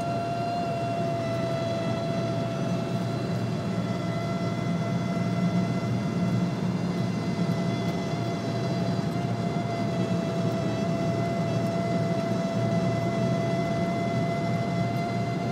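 A steady high whistling squeal from the dashboard of a BMW 330 E91, one held pitch with overtones, over the cabin's road and engine rumble. This is the dashboard squeak that appears only above 140 km/h.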